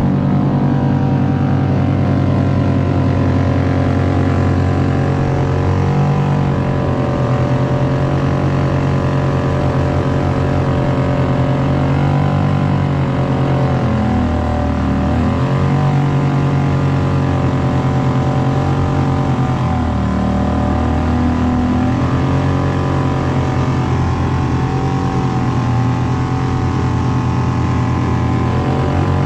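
Suzuki 2.5 HP four-stroke outboard motor running steadily under way, its pitch dipping briefly about halfway through and again about two-thirds through.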